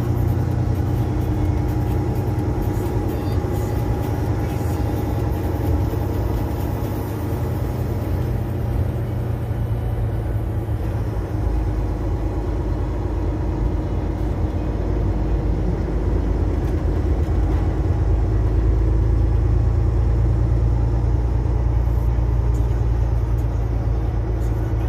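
Steady low rumble of a moving vehicle's engine and tyres, heard from inside the cab.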